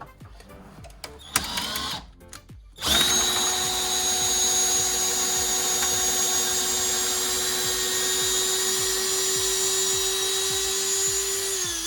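Electric hand drill spinning a long bit in wood: after a short blip, it starts up about three seconds in and runs at a steady high speed with a constant whine. Near the end it slows down with a falling pitch as the trigger is let off.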